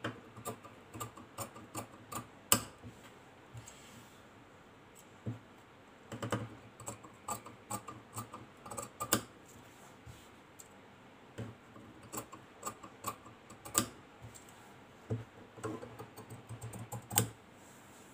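Large tailor's shears snipping through thin chiffon fabric on a tabletop: short, irregular snips and clicks coming in several runs with brief pauses between them.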